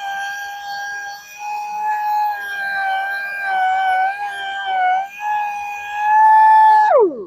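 High-speed rotary power tool running with a steady high whine, its pitch dipping briefly now and then. Near the end it winds down quickly, then spins straight back up to speed.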